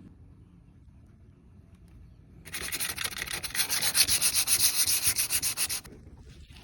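Sandpaper rubbed in quick back-and-forth strokes over rusted car body metal to take off the remaining rust spots. The rasping starts about two and a half seconds in and stops about a second before the end.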